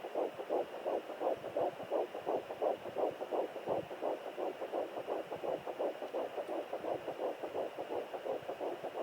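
Fetal heartbeat at 9 weeks picked up by a home Doppler: a fast, even whoosh-whoosh at about three beats a second over a faint static hiss.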